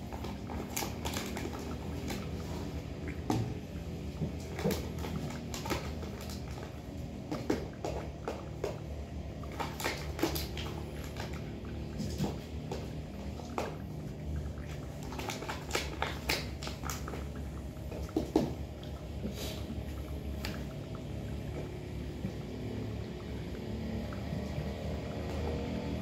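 Metal spoon clicking and scraping against a can of wet cat food as it is scooped out, in scattered short clicks that are busiest around the middle, with cats eating from their bowls over a steady low hum.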